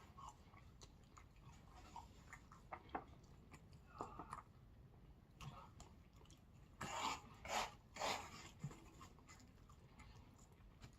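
Faint chewing and mouth sounds of a person eating, with a few louder short noises about four seconds in and between seven and eight and a half seconds.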